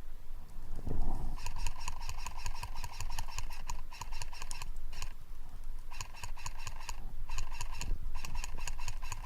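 Airsoft electric PPSh-41 replica firing full-auto bursts: rapid, even clicks over a gearbox whine. One long burst about a second and a half in, a brief one near the middle, then three short bursts.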